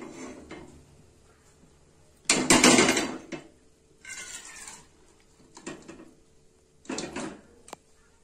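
Kitchen handling sounds: an aluminium pressure cooker knocking on a gas stove and soaked split lentils tipped into it from a plastic bowl. The loudest clatter comes a little over two seconds in, followed by a few lighter knocks and a sharp click.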